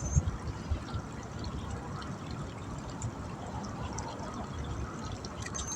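Steady trickle of running water, with irregular low rumbles of wind on the microphone.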